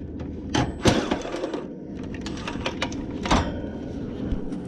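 Several sharp metallic clicks and knocks from hands and tools working on a heat pump condenser's sheet-metal cabinet and wiring, the loudest about a second in and again past three seconds.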